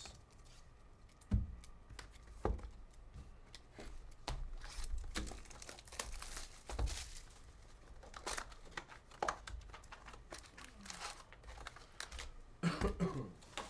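Trading card pack wrappers being torn open and crinkled while cards are handled: an irregular run of short rips, crinkles and light taps.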